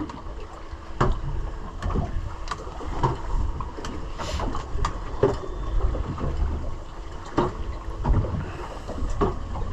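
A small boat rocking in choppy water, with waves slapping the hull in irregular knocks and wind rumbling on the microphone.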